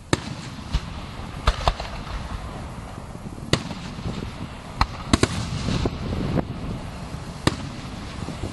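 Fireworks display: about nine sharp bangs of shells bursting at uneven intervals, several in quick succession around the middle, over a continuous low rumble.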